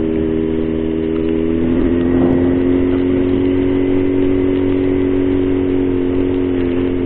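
Yamaha XJ6's 600 cc inline-four engine running with the bike under way at about 57 km/h, its note rising a little about two seconds in and then holding steady.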